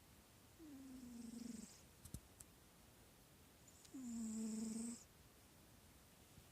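Snoring: two slow snores about three seconds apart, each lasting about a second, with a low droning tone that dips slightly and then holds, and a breathy hiss over it. The second snore is louder.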